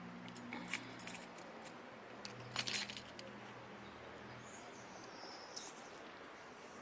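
Metal jingling and clinking in two short clusters, about half a second in and again between two and three seconds in, over a faint steady low hum.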